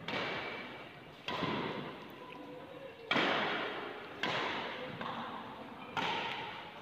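Badminton racket strikes on shuttlecocks in a multi-shuttle drill: five sharp hits, one every one to two seconds, each trailing off in the echo of a large hall.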